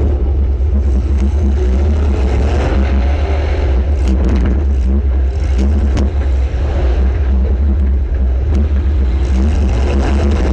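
Compact demolition derby cars' engines running loud and revving, with a few sharp knocks of car-to-car hits scattered through.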